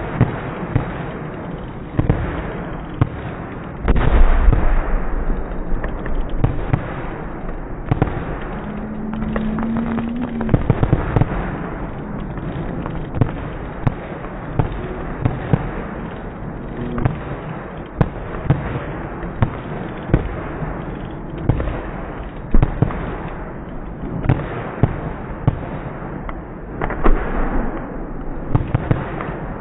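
Fireworks display going off in quick succession: many sharp bangs and crackles over a continuous rumble, with the loudest run of bursts about four seconds in.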